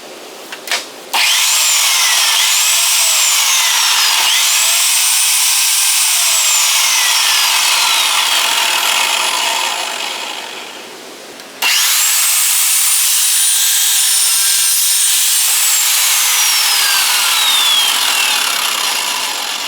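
Evolution 14-inch metal-cutting mitre chop saw started twice and cutting into steel tubing. Each time its whine rises as the blade spins up, slides down in pitch as the blade bites into the tube, then dies away as it winds down. The first run fades about halfway through, the second near the end.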